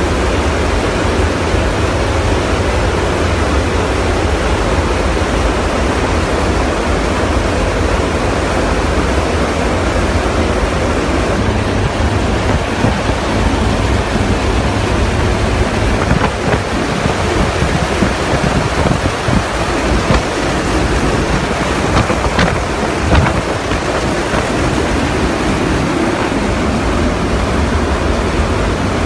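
Loud, steady rush of airflow and engine noise at the open rear cargo ramp of a military transport aircraft in flight, with the wind buffeting the microphone in rough gusts past the middle.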